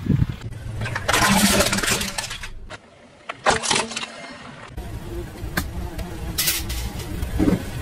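A car rolling slowly over small objects on pavement. The engine and tyres rumble low under bursts of crackling and crunching. About three seconds in it drops suddenly to near quiet, followed by one sharp crunch.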